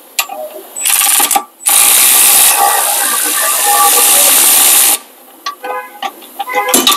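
Cordless electric impact gun spinning out a rear brake caliper bracket bolt. A short burst comes about a second in, then a run of about three seconds that stops suddenly, followed by a few faint metallic clicks.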